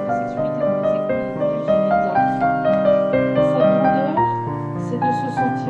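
Piano music, a flowing line of notes over held chords, with a lower bass note coming in about four seconds in.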